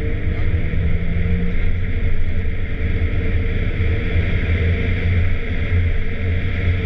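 Porsche 996 Turbo's twin-turbo flat-six heard from inside the cabin while driving at speed: a steady, low drone.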